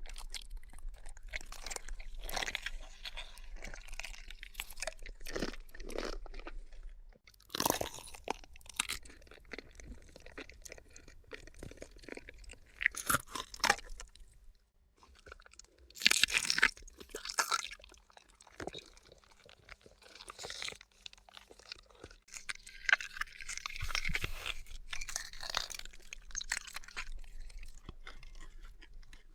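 Horror sound effect of a monster eating: continuous, irregular chewing and crunching, with bone-crunching and tearing. A few sharp, loud crunches stand out, the loudest just past the middle, after a brief pause about halfway.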